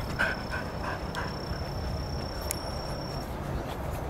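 Dog panting in short quick breaths that fade out over the first second or so. After that comes a quiet outdoor background with a low rumble and a thin, steady high whine that stops about three seconds in and comes back near the end.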